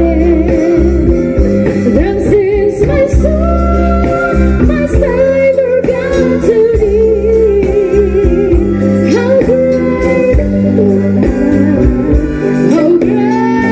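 Singing over instrumental accompaniment: a voice holds and bends notes with a wavering vibrato above a steady bass line.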